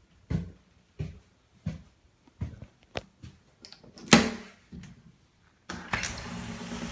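A run of soft thuds, about one and a half a second, then a single sharp knock about four seconds in. Near the end a loud, steady rushing noise with a low hum starts up suddenly.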